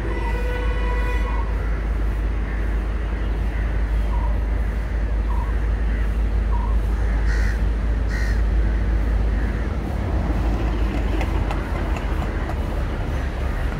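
Crows cawing several times over the steady low rumble of an approaching EMD G12 diesel locomotive, still some way off.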